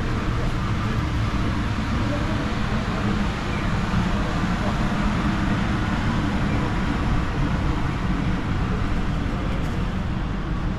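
Steady city street noise: road traffic running past without a break.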